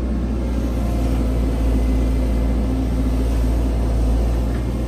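Caterpillar tracked excavator's diesel engine running under load, a steady low drone, as the machine swings its arm and digs its bucket in to pull itself up a steep muddy slope.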